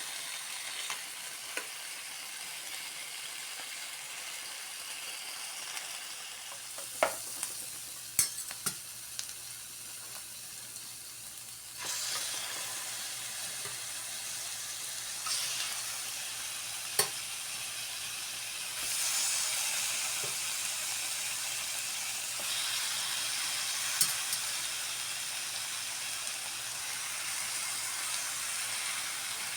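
Food sizzling in a hot frying pan, a steady hiss that gets louder twice, with a few sharp clicks of a utensil against the pan.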